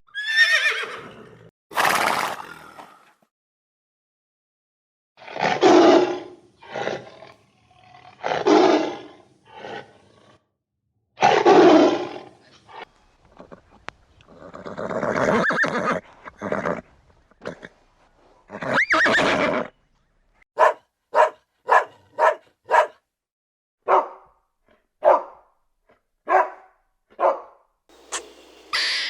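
A series of separate loud animal calls, one after another with short pauses, ending in a run of short sharp calls repeated about once a second.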